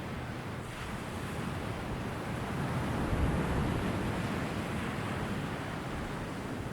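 Ocean surf: a steady rush of waves, swelling about three seconds in and then easing.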